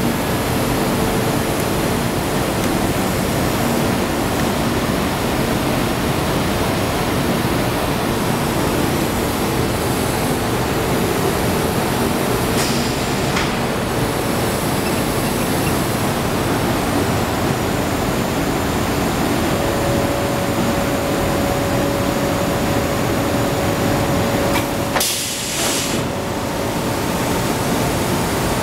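Steady, loud machine noise from a running Macmazza beam saw, an even rushing sound with faint steady hum tones under it. Near the end comes a brief hiss as the overall level dips for a moment.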